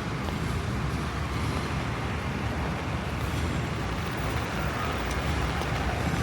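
Steady city street noise: a constant wash of road traffic with a low rumble, with no single event standing out.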